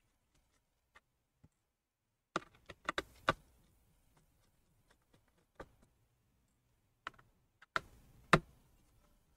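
Small sharp clicks and taps of a screwdriver and tiny Torx screws as a laptop's bottom cover is unscrewed. The clicks come in two short clusters about five seconds apart, with a few faint ticks between.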